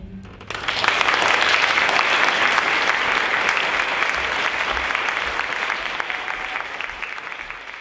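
Audience applauding: many hands clapping together, starting abruptly about half a second in and tapering off near the end.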